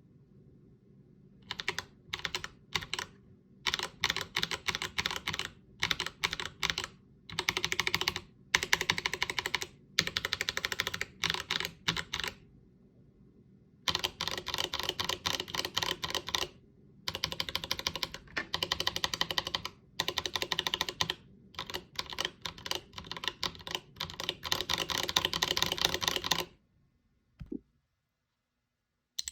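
Typing on a mechanical keyboard fitted with Akko CS Lavender tactile switches, a loud clack on each keystroke: bursts of fast keystrokes broken by short pauses. The typing stops about 26 seconds in, with one soft thump after it, and starts again right at the end.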